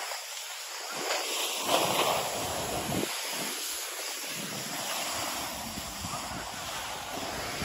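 A snowboard sliding and scraping over packed snow on a downhill run, with wind rushing over the microphone. The scrape swells briefly about one and two seconds in.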